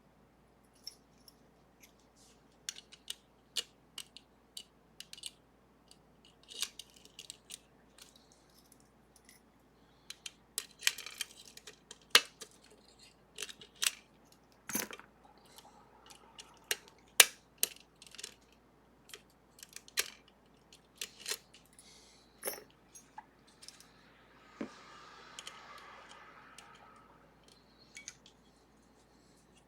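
Lock-picking tools clicking and scraping against the metal of a Sargent and Greenleaf 4440 lever lock as its guard-side levers are picked: irregular sharp metallic clicks with short scrapes, and a longer rustle near the end.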